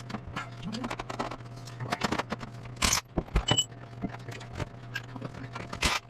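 Metal hand tools working on cylinder head bolts: irregular clicks and clanks of a socket and wrench, with two louder harsh scraping bursts about three seconds apart. A steady low hum runs underneath.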